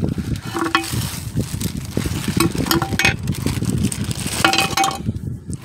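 Thin clear plastic bag crinkling and rustling as a new suspension control arm is worked out of it by hand, with a few light knocks in between.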